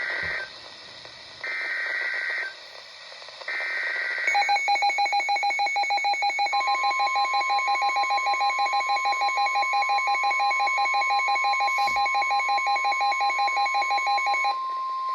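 NOAA Weather Radio emergency alert: three short bursts of the SAME digital header about a second apart, then an alarm beeping in rapid pulses for about ten seconds. A steady warning alarm tone joins a couple of seconds after the beeping starts and holds until the voice announcement of the severe thunderstorm warning begins.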